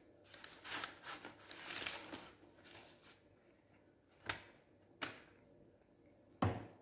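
Faint rustling and crackling of baking paper and a flaky, sugar-dusted puff pastry being picked up from a foil tray, lasting about three seconds. A few sharp clicks and a light knock follow.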